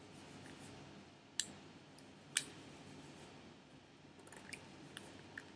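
A few small clicks and taps of nail-art tools and containers being handled on a table: two sharper clicks about one and a half and two and a half seconds in, then several fainter ones near the end.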